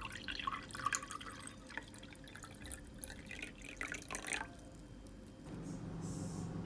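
Water dripping and lightly splashing in irregular small clicks for about four seconds. About five and a half seconds in, a steady low hum starts.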